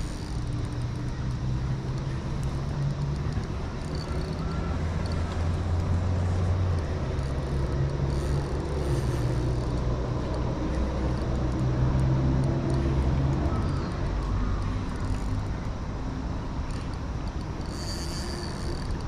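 Road traffic noise: a steady low rumble from passing vehicles that swells and fades every few seconds.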